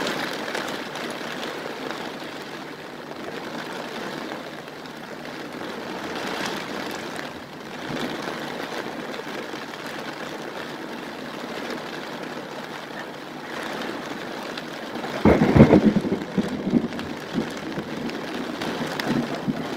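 Heavy rain pouring steadily. About fifteen seconds in, a loud, sudden low rumble breaks in and dies away over a second or two.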